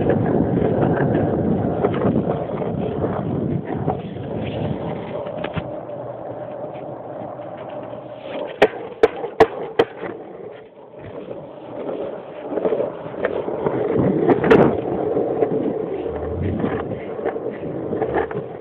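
Longboard wheels rolling over sidewalk pavement, a steady rolling rush that swells and fades with speed, with a quick run of four sharp clicks a little under halfway and another sharp click about three-quarters through.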